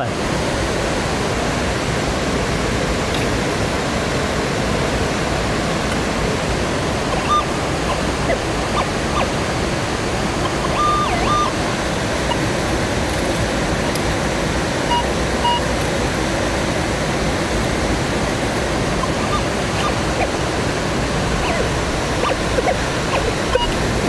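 Steady rushing noise of a nearby waterfall, with a few brief high beeps from a metal detector about a third and two thirds of the way through.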